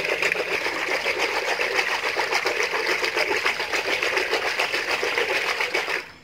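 Wooden spoon beating gram flour into buttermilk in a metal pot: a fast, steady run of clicks and scrapes as the spoon strikes the pot, stopping suddenly near the end.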